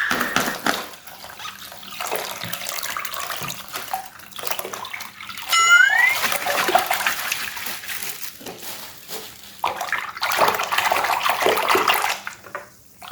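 Slime squelching and crackling wetly as it is squeezed and worked by hand out of a mystery bag, with a short rising squeak about six seconds in.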